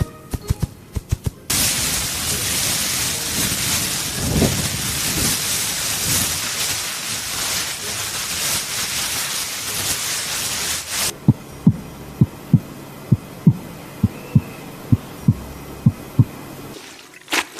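A sequence of sound effects: a few low thumps, then about ten seconds of loud, steady hiss that cuts off suddenly, then a run of low, evenly spaced thumps about two a second, a heartbeat sound effect.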